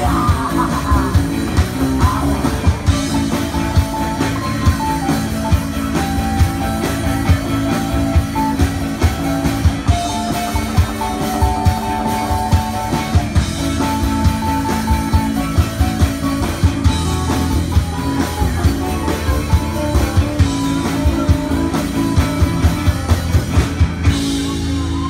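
Live rock band playing loud through a PA: electric guitars and bass over a drum kit keeping a steady beat.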